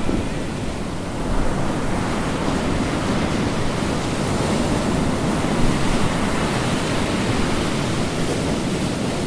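Steady rush of ocean waves and surf, an even wash of noise that swells gently without breaking off.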